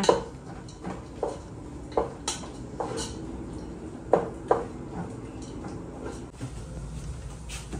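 Light clinks of a utensil against a small bowl while stirring, about nine separate short clicks at irregular intervals over a few seconds.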